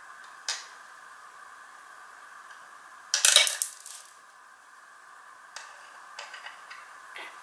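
Small hard plastic Playmobil pieces clattering and clicking as they are handled: a single tap about half a second in, a short rattling clatter of many pieces about three seconds in, then a few light clicks near the end.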